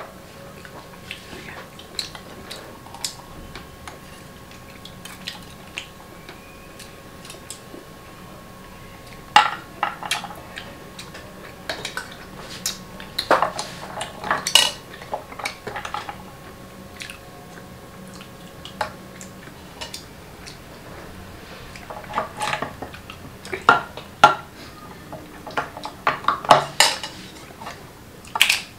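Tableware clatter while eating a seafood boil: clam shells, chopsticks and a spoon clicking and knocking against a glass baking dish and ceramic bowls. Scattered sharp clicks, busiest in flurries about a third of the way in, around the middle, and in the last several seconds.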